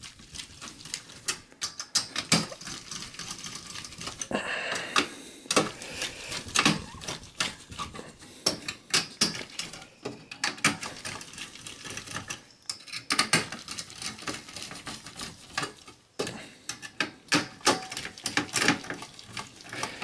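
Phillips screwdriver driving the CPU heatsink's screws back into a Dell Precision T1700's motherboard: irregular small metal clicks and taps, with a short scrape a few seconds in.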